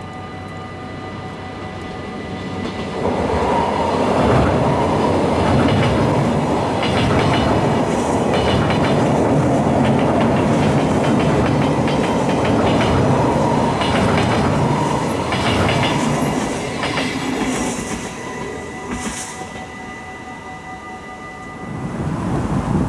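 Yellow-and-blue NS double-deck electric train passing over a single-track steel swing bridge. It comes in about three seconds in, its wheels clattering rhythmically over the rail joints for some fifteen seconds, then fades away.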